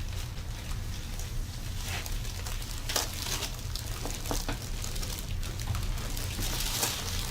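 Irregular soft crackling and rustling, with scattered small clicks, over a steady low hum.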